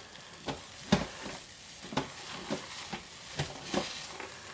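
Thick, fluffy liquid-soap paste being stirred and folded with a spatula in a crock pot: irregular short squelches and crackles, about two a second. The fluffy, crackling texture marks the paste midway through its hot-process cook.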